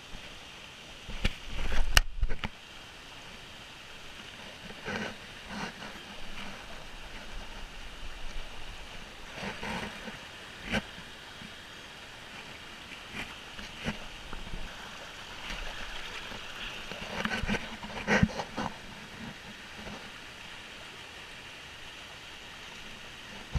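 Shallow stream rushing over rocks, a steady hiss, with scattered bumps and rustles close to the microphone, the loudest about two seconds in.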